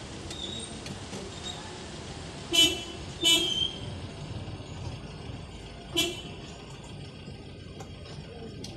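Toyota Vios car horn giving three short toots, the second a little longer, as the horn pad is pressed with the steering wheel at different angles. The horn working again is the test of the newly replaced airbag spiral cable (clock spring).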